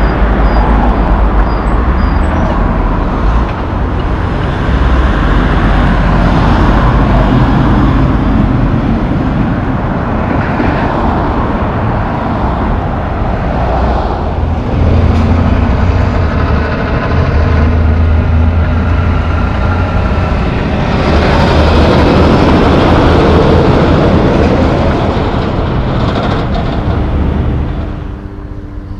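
Highway traffic passing close by: heavy trucks and cars going by one after another, tyre noise and engine drone swelling and fading with each pass. The noise drops off suddenly near the end.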